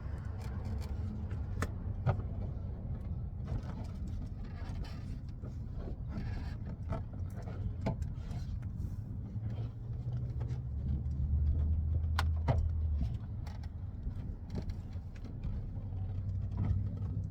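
Scattered clicks and light knocks from hand work on a pickup's door panel and speaker, over a steady low rumble that swells for a couple of seconds about ten seconds in.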